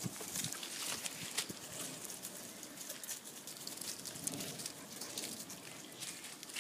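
Dry leaves rustling and crackling on dirt under young puppies' paws as they scamper about, with many small scattered clicks and scuffs.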